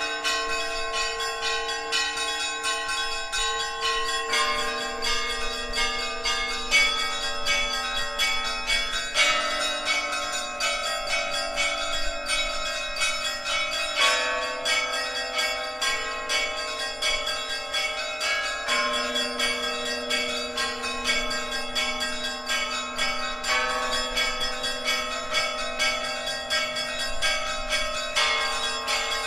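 Orthodox church bells of the Kyiv-Pechersk Lavra ringing together: many bells struck in quick succession over the lingering tones of lower bells, with the set of pitches shifting every few seconds.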